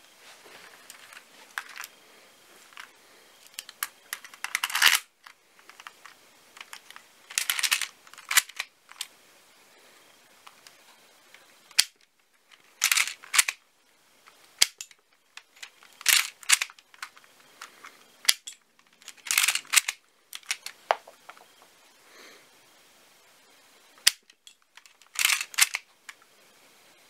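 A LEGO brick-shooting gun being cocked and fired again and again: short bursts of sharp plastic clacks and snaps from its mechanism, about six times, with single clicks in between.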